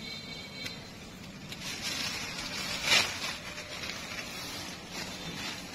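Rustling and crackling of wet grass as a person parts it by hand and moves through it, with a sharper, louder crackle about three seconds in.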